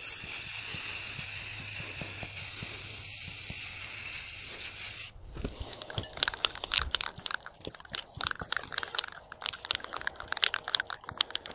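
Aerosol spray-paint can spraying in one steady hiss for about five seconds, cutting off sharply, followed by irregular crunching and clicking for the rest.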